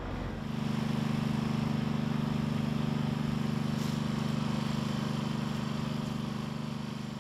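An engine idling steadily with a low hum and a fast even pulse, fading out near the end.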